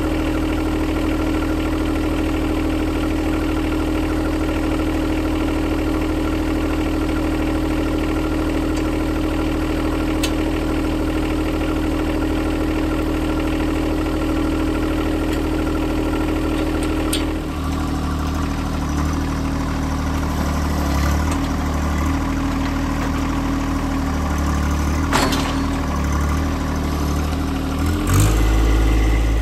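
John Deere compact tractor's diesel engine idling steadily. About halfway through its note drops and turns rougher and more uneven as the loader's grapple works, lifting and carrying a log, with a couple of sharp knocks near the end.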